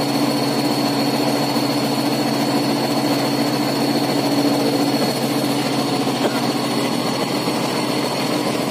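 Heavy diesel engines of a concrete mixer truck and a Kato KR-35H mobile crane running side by side, loud and steady, with a thin steady high whine over the low engine drone.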